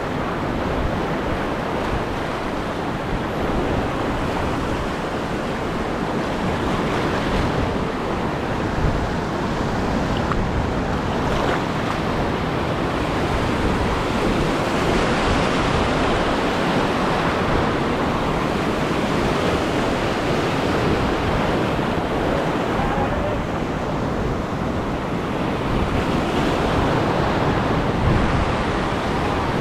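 Waves washing over a shallow reef with wind buffeting the microphone: a steady rushing noise with no distinct events.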